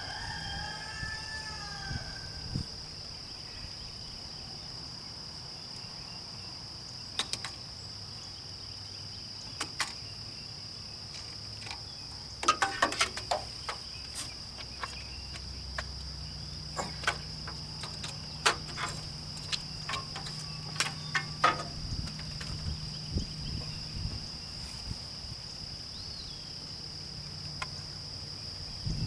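Steady, high-pitched chorus of insects, with scattered clicks and knocks, a cluster about halfway through and more a few seconds later, and a faint low hum for several seconds after the middle.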